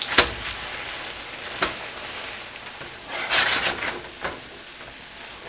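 Spaghetti and spinach sizzling in a nonstick skillet as they are tossed with tongs: a steady hiss with a few sharp clacks of the tongs against the pan, and a busier run of clacks and scrapes a little past halfway.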